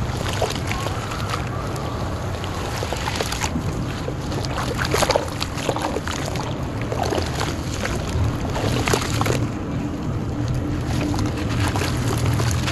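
Hands sloshing and splashing in a basin of muddy water, with frequent short splashes and drips as a dry clay cylinder is dipped and crumbled into it.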